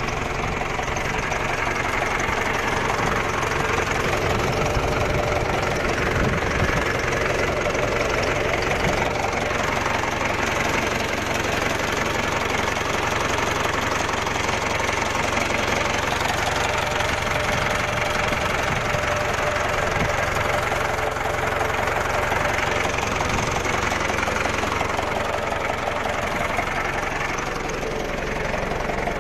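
Large farm tractor's diesel engine idling steadily, heard up close beside the engine block.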